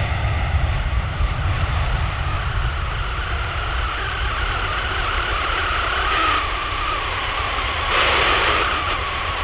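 Twin jet engines of an Airbus A318 at takeoff thrust as it lifts off and climbs away: a steady low rumble with a whine above it. A brief hiss about eight seconds in.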